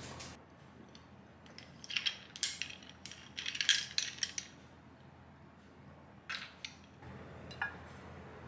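Ice cubes clinking against a glass as it is lifted and tipped to drink: a quick run of bright clinks, followed by a few lighter clicks near the end.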